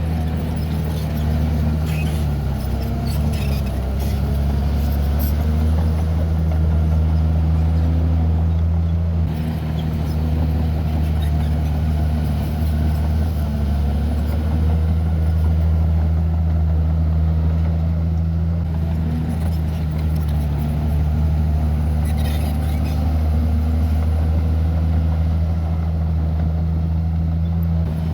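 Heavy diesel engine of earthmoving equipment running steadily under load, with a deep, even hum and a slight change around the middle.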